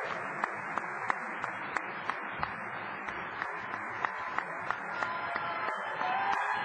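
Large convention crowd applauding and cheering steadily, with single sharp claps standing out, and a few voices calling out over it near the end.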